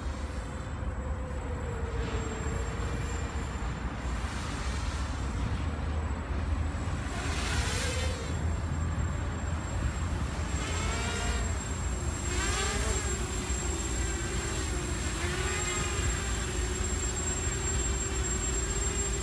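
Graupner Alpha 250 racing quadcopter's brushless motors and propellers buzzing as it flies, the pitch wavering with throttle and jumping up in several short bursts in the second half, over a steady low rumble.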